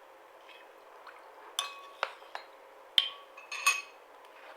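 About five sharp clinks against a drinking glass, each ringing briefly, the loudest two near the end, as onion juice is added to the glass of drink.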